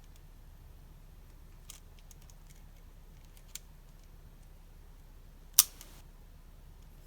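Small clicks from handling stationery and packaging during an unboxing: two faint ticks, then one sharp click about five and a half seconds in that rings briefly.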